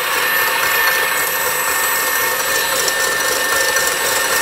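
Electric stand mixer running steadily at speed, its whisk beating egg whites and sugar toward stiff meringue peaks; the motor gives an even whir with a constant high whine.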